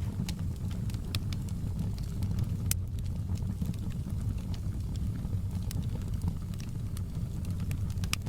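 Open log fire burning: a steady low rumble of flame with irregular sharp crackles and pops from the burning wood, a louder pop about two and a half seconds in and another near the end.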